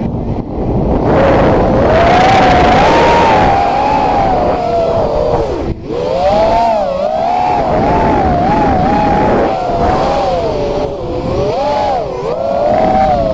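FPV quadcopter's electric motors and propellers whining, recorded by the onboard camera, the pitch constantly rising and falling with the throttle over a rush of air noise. The whine drops out briefly about six seconds in.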